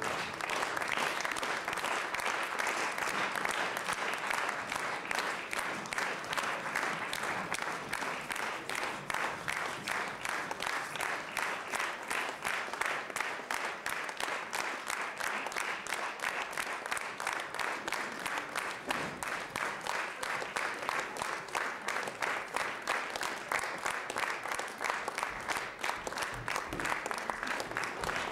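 Theatre audience applauding, the clapping soon falling into a steady rhythmic clap in unison.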